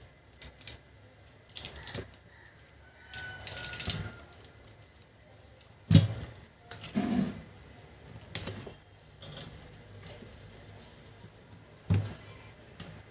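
Parts of a Canon LBP2900 laser printer's fuser unit being handled and taken apart: irregular clicks and knocks, the loudest about six seconds in and another near the end, with a short scraping rustle around three to four seconds in.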